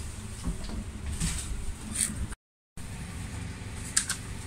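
Steady low rumble of a regional train, heard from inside the passenger carriage. It is briefly cut off about halfway through, and a sharp click or paper tap follows near the end.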